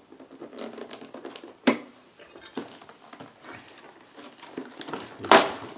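Hands handling and opening a paperboard product box: scattered taps and rustles, a sharp click about a second and a half in, and a louder scrape near the end as the end flap is pulled open.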